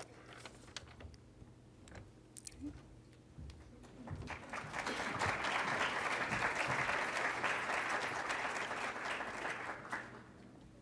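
Audience applauding, starting about four seconds in and fading out near the end, after a few faint clicks.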